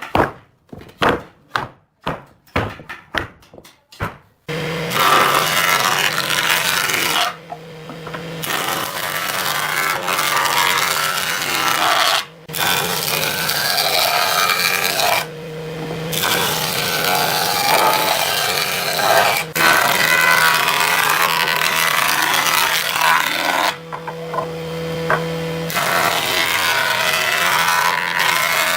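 A run of about ten sharp knocks over the first four seconds. Then a handheld electric power tool works wood with a loud, continuous cutting noise. In a few short pauses the tool's motor is heard humming on its own.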